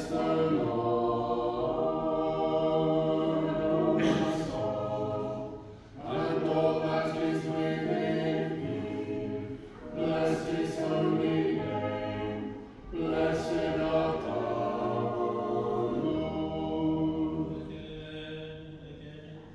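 Unaccompanied choir singing Orthodox liturgical chant in several long held phrases, with short pauses between them; the singing grows quieter near the end.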